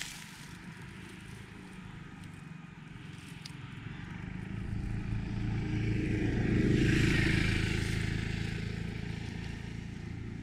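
A motor vehicle drives past. Its engine hum and tyre rush build from about four seconds in, are loudest around seven seconds, then fade away.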